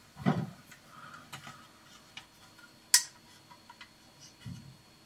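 Scattered light clicks and soft knocks from something being handled close to the microphone, with one sharp click about three seconds in.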